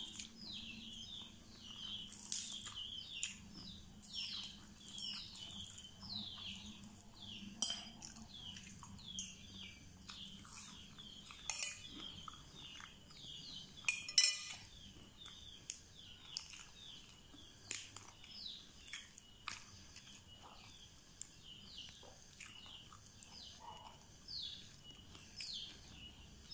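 A metal spoon clinking and scraping on a plate as the last rice is gathered, in scattered sharp clinks, the loudest about halfway through. Behind it, short high chirps that slide downward repeat about once or twice a second, like a small bird calling.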